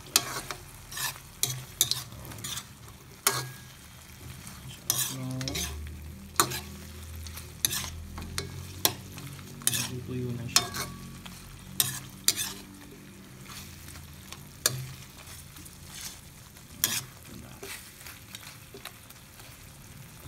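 A metal spoon stirring pork belly adobo in a metal wok: irregular clinks and scrapes against the pan, about one a second, over the soy-vinegar sauce bubbling and sizzling as it simmers down.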